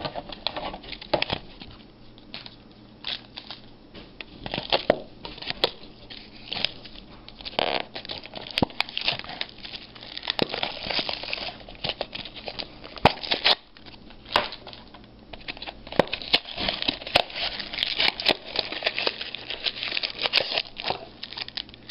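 Thin plastic shrink-wrap crinkling and tearing as it is stripped off a small cardboard box of trading cards, with the box's flaps handled. Irregular crackles throughout, busiest in the second half.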